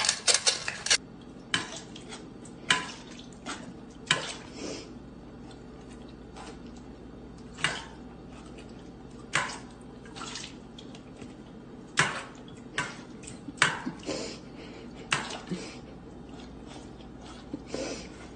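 Stainless steel dog bowls clanking as a dog eats and drinks from them: irregular sharp clinks, a second or two apart, after a quick cluster of clicks at the start.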